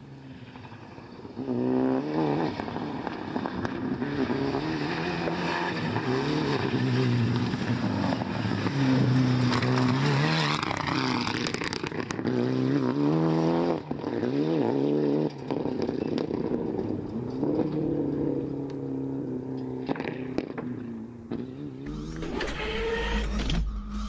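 Mitsubishi Lancer Evolution rally car driven hard on gravel, its turbocharged four-cylinder engine revving up and dropping back again and again through gear changes, with gravel and tyre noise. The engine grows loud about a second and a half in. Electronic music starts near the end.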